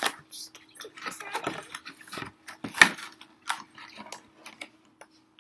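Plastic and cardboard toy packaging being worked apart by hand: irregular crinkling, rustling and crackling, with a sharper crack about three seconds in.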